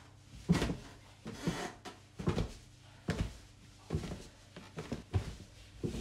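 Footsteps going down a staircase: steady, evenly spaced thumps, a little more than one a second, over a low steady hum.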